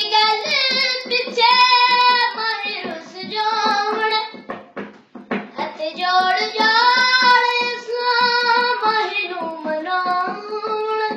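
A young boy singing solo without accompaniment, in two long phrases of held, wavering, ornamented notes with a short break about halfway.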